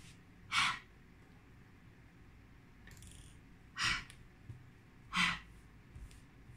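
A person's breathing: three short, sharp breaths, one near the start and two about a second apart near the end.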